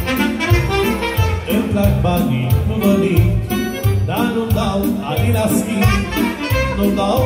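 Live band playing an instrumental passage through PA speakers: saxophone and clarinet lines over a keyboard accompaniment with a steady beat of about two pulses a second.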